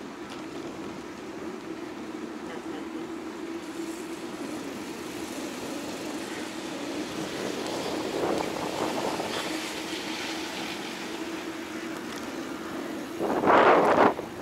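Street traffic and riding noise with a steady hum, and a sudden burst of louder noise about a second before the end.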